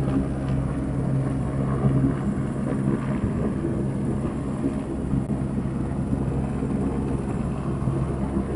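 An engine running steadily with an even, unchanging hum, with some wind noise on the microphone.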